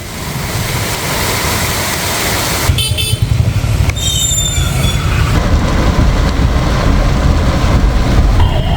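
Road traffic: a steady engine rumble and hiss, with vehicle horns tooting briefly about three and four seconds in and again near the end.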